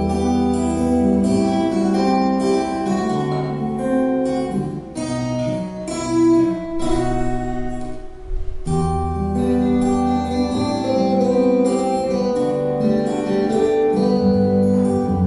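Two acoustic guitars playing an instrumental duet, plucked notes and chords ringing together, with a short break about eight seconds in before the playing picks up again.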